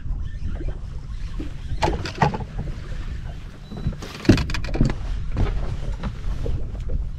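Steady low rumble of wind and water around an open bass boat, with a few sharp knocks and clatters on the boat about two seconds in and again around the middle, the loudest just past the middle.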